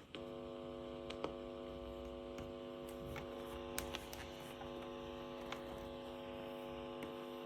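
Radiocorder 4000 CS radio cassette recorder's speaker giving a steady buzzing hum instead of any station, starting suddenly with a click, with a few faint clicks over it. This is the set's fault: on radio no station can be tuned in, only noise comes through.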